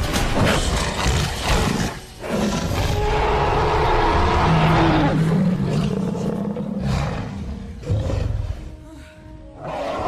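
Dinosaur roar sound effect for a Spinosaurus: loud, rough roars with a short break about two seconds in, then a long pitched roar that slides down near the middle, followed by shorter, quieter growls.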